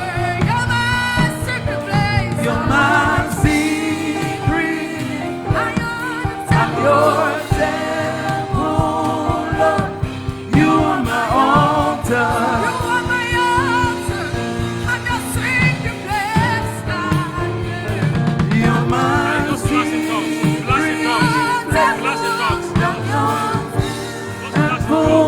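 Live gospel worship music: singers with a choir over a steady instrumental backing.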